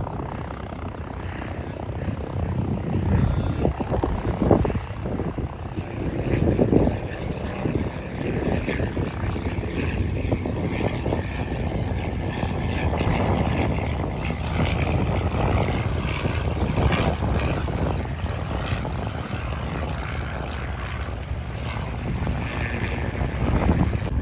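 Cessna 182 Skylane's propeller and piston engine running at low power as the plane taxis, a continuous drone that swells unevenly.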